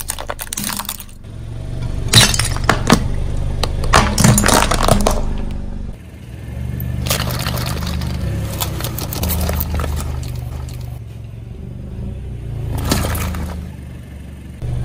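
Car tyre rolling slowly over hard plastic objects on concrete, cracking and snapping them, with the loudest sharp cracks about two to five seconds in. It then rolls over plastic balls packed in a cardboard egg carton, which crack and split under the weight, with a last burst of cracks near the end. A low rumble from the rolling car runs beneath.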